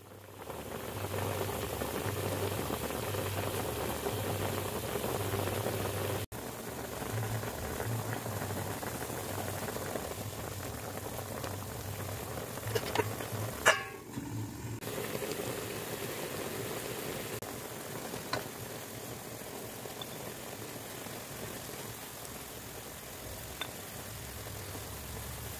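Chicken adobo boiling hard in a wide metal pan: steady bubbling of the soy-and-vinegar sauce, with a low hum underneath. A few clicks and one sharp knock come about halfway through.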